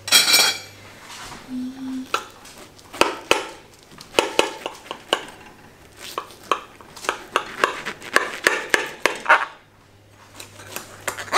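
Table knife cutting into a baked chicken-and-mashed-potato casserole, in a long run of sharp clicks and taps against the glass baking dish. Plates and forks clatter at the start.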